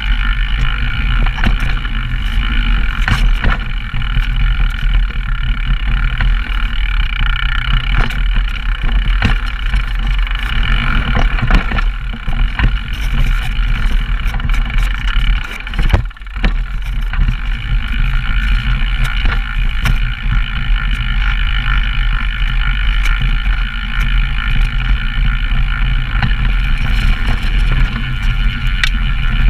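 Downhill mountain bike descending a rough trail, heard through the riding cameras' own microphones: a steady rush and rumble of wind and tyres with frequent knocks and rattles from the bike over the ground, and a short drop in the noise about halfway.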